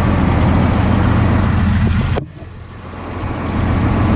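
A vehicle engine running steadily with a deep hum. About halfway through it cuts off abruptly, then swells back up to the same steady running over a second or so.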